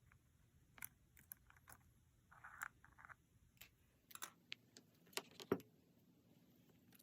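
Faint scattered clicks and taps of small repair tools against phone parts, with a brief scrape about two and a half seconds in and a cluster of sharper clicks in the second half.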